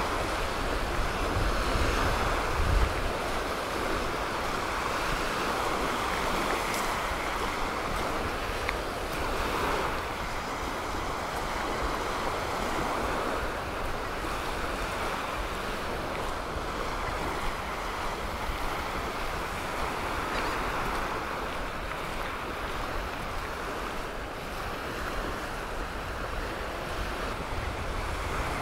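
Surf washing onto a beach, swelling and easing every few seconds, with wind buffeting the microphone, strongest about three seconds in.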